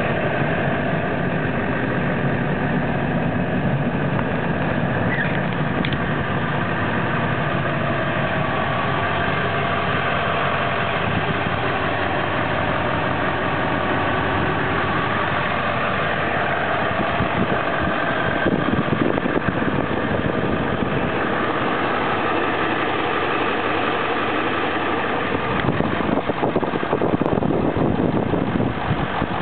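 Ford 7.3-litre Powerstroke turbo-diesel V8 idling steadily, a little louder near the end.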